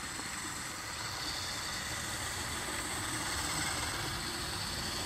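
Electric motors and drivetrains of two RC mud trucks running steadily as they climb a dirt slope: a faint, even whine. One truck is brushless and the other has twin brushed motors.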